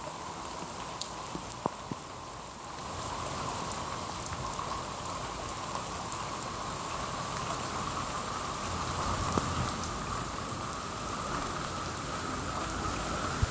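Heavy rain falling steadily, growing a little louder about three seconds in, with a few sharp ticks.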